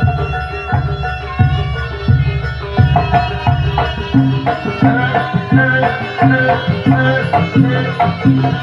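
Javanese jaranan ensemble music: kendang hand drums struck in a steady, driving rhythm under ringing pitched gamelan-style tones. About four seconds in, the drumming settles into an even pattern of roughly two strokes a second.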